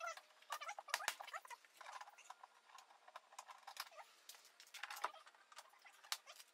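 Plastic liftgate interior trim panel being handled and pressed into place: scattered light clicks and small squeaks, with a couple of sharper clicks about a second in and a busier cluster around five seconds.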